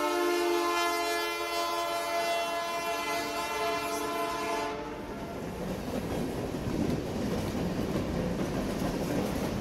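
Canadian Pacific locomotive's air horn sounding a held chord that cuts off a little under halfway through, followed by the steady rumble and wheel clatter of the passing freight cars.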